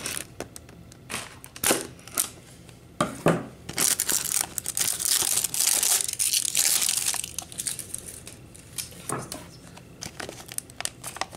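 Plastic shrink-wrap crinkling and being torn off a plastic toy cup: scattered crackles, with a longer, louder stretch of tearing and rustling in the middle.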